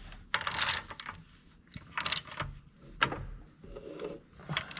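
Wrench tightening a large bolt: scattered metal clicks, scrapes and short rasping strokes, with a sharp click about three seconds in.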